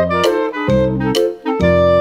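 Upbeat background music with a steady beat, a saxophone-like lead over piano and bass.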